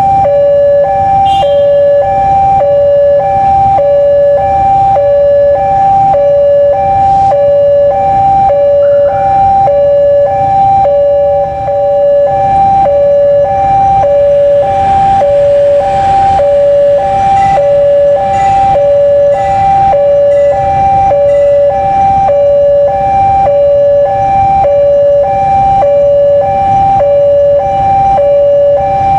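Railway level-crossing warning alarm sounding steadily: two electronic notes alternating, each held about a third of a second. A low rumble sits beneath it, from the diesel train approaching on the track.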